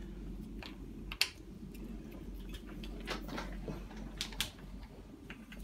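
Scattered light clicks and taps of a stroller's stability bar being worked into place in the handle mechanism, the sharpest about a second in, over a steady low hum.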